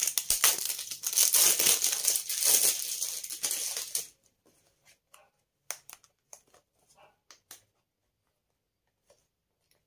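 Clear plastic wrap being peeled and crumpled off a small cardboard product box, crinkling loudly for about four seconds. After that, only a few light clicks and rustles as the box is handled.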